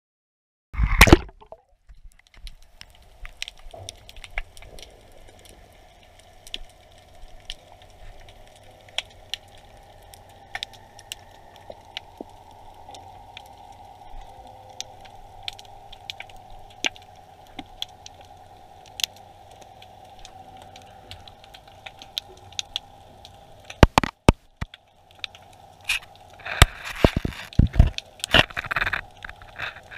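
Underwater sound picked up by a GoPro in its waterproof housing: a faint steady hum with scattered sharp clicks and crackling, a loud knock about a second in, and louder knocks and scraping against the housing near the end.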